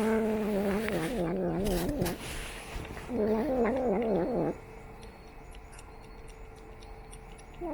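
A cat yowling: two long, wavering calls, the first about two seconds long and the second, starting about three seconds in, about a second and a half.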